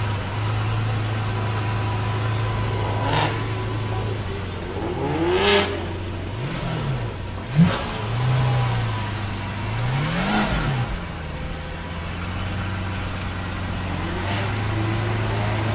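Lamborghini Veneno's V12 engine running steadily, then revving up and down several times in the middle, with a single sharp crack about seven and a half seconds in, before settling back into a steady drone near the end.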